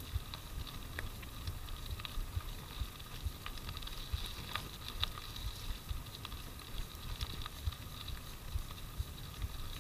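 Mountain bike rolling along a wet gravel track: a continuous tyre rumble with frequent small bumps and scattered clicks and rattles from the bike.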